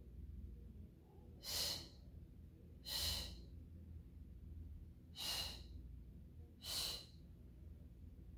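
A woman's short, sharp breaths, four in a row about one every second and a half, paced to twisting exercise pulses, over a faint low hum.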